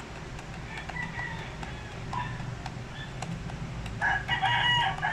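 A rooster crowing: one long, loud call starting about four seconds in. Faint clicks of keyboard keys being pressed come before it.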